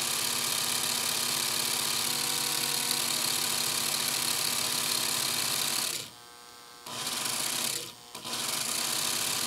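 Dremel rotary tool running steadily, its felt buffing wheel rubbing against the pulley of a miniature brass flyball governor and spinning it. The tool stops for under a second about six seconds in, starts again, and cuts out briefly once more about two seconds later: its speed control is more or less on or off.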